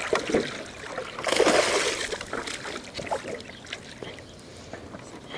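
Water splashing beside a small jon boat as a hooked bass is brought in, with scattered knocks, loudest in a burst a little over a second in.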